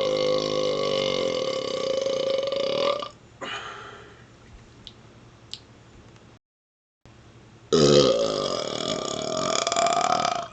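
Long, loud burps from a man who has chugged Coke. One drawn-out burp holds a steady pitch until about three seconds in. After a pause a second long burp starts and rises slightly in pitch toward the end.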